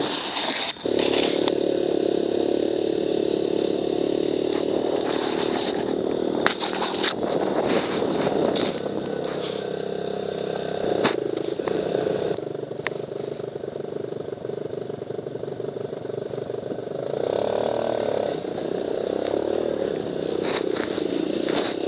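Off-road buggy engine running under way, heard from on board, with scattered knocks and rattles from the frame. Near the end the engine pitch rises and falls.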